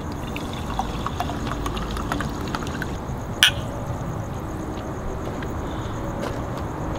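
Liquid poured from a glass bottle into a glass tumbler, with small ticks of glass on glass; about three and a half seconds in, one sharp clink of glass.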